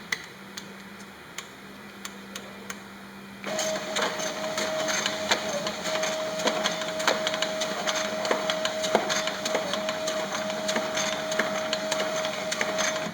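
Extreme XM12HS friction feeder starting up about three and a half seconds in and running, with a steady whine and rapid clicking as its belts feed chipboard sheets. It stops abruptly near the end. Before it starts there is only a faint hum with a few clicks.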